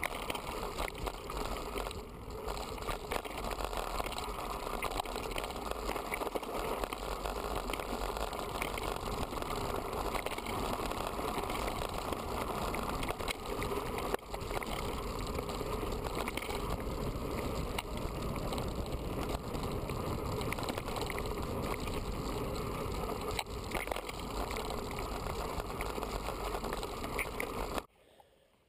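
Mountain bike riding fast down a rough dirt trail: a steady rattling, rushing noise of tyres on the ground and the bike clattering over bumps. It cuts off abruptly near the end.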